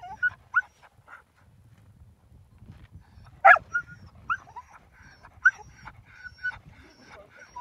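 A team of harnessed sled huskies yelping and whining, eager to start running. Many short, high calls overlap and sweep up and down in pitch, with the loudest yelp about three and a half seconds in.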